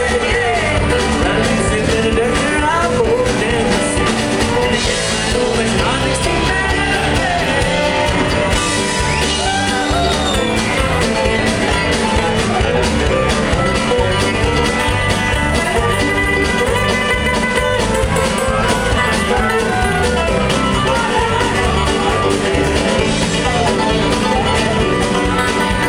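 A live bluegrass-rock band playing at full volume, with acoustic and electric guitars under a bending, wailing blues harmonica.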